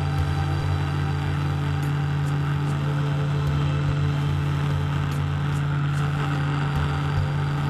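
A machine running steadily: a constant motor hum that does not change.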